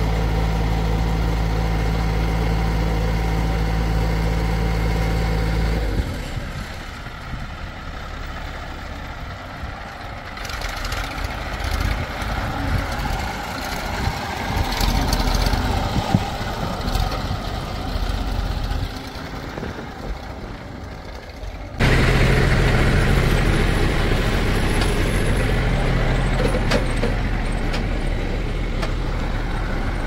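Diesel engines of a backhoe loader and farm tractors running. The sound is a steady engine tone for about the first six seconds, then a noisier, uneven stretch with some knocks, and it changes abruptly back to a steady engine tone about twenty-two seconds in.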